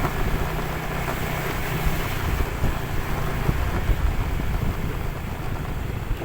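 A vehicle engine running on the move, with wind rumbling on the microphone.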